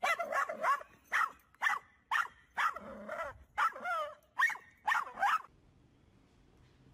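Small dog barking in a rapid series of short, sharp yaps, about two a second, that stop about five seconds in.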